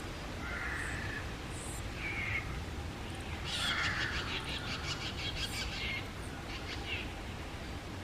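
Juvenile greater racket-tailed drongo giving short harsh calls, then a longer rasping, rattling call about three and a half seconds in, followed by a few short high notes.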